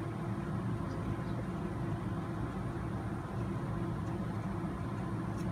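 Steady low background hum with no clear rhythm, and a few faint clicks of small parts being handled.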